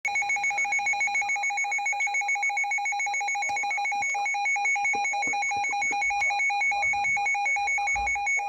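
Weather radio receiver's built-in alert alarm sounding for a received severe thunderstorm warning: a loud, rapid, evenly pulsing electronic beep.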